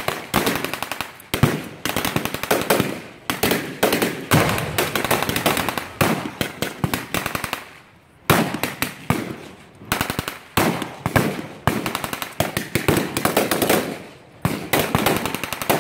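Rapid blank gunfire from battle reenactors' rifles and machine guns: dense bursts of shots with two brief lulls, one about halfway through and one near the end.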